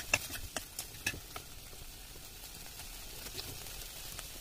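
A spoon stirring steamed chicken pieces in a metal kadai, with a few light clicks and scrapes against the pan in the first second or so. Then a faint steady sizzle as the leftover water cooks off.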